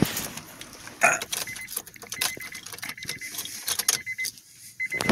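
Keys jangling and clicking as the ignition key of a 2002 Honda Odyssey is handled. From about a second and a half in, a faint high electronic beep sounds again and again in short dashes.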